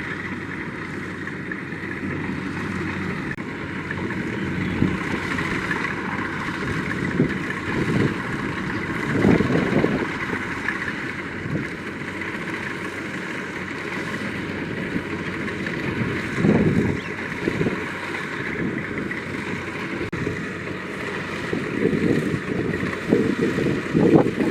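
Kubota DC-70 combine harvester running steadily while harvesting rice. Wind gusts on the microphone several times.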